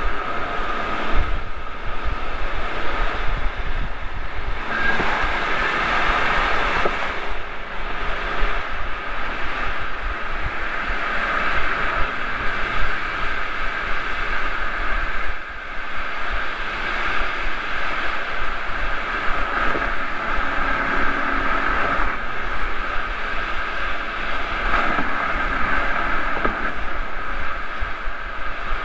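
Mercedes-Benz E320 CDI turbodiesel sedan cruising at highway speed, heard through a microphone mounted outside the car: a steady rush of wind and tyre noise that swells for a couple of seconds about five seconds in.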